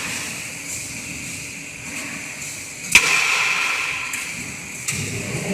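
Double-head aluminium cutting saw being readied to cut: light clicks, then a sharp clack about three seconds in followed by a hiss that slowly fades.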